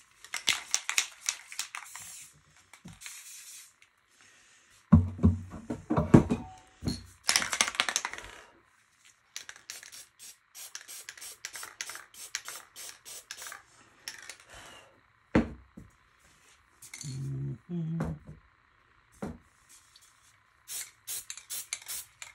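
Aerosol spray paint can sprayed in short repeated hissing bursts, with clicks and a few knocks from handling.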